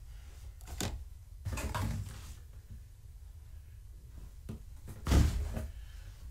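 A few knocks and scrapes of things being handled or moved, the loudest about five seconds in, over a low steady hum.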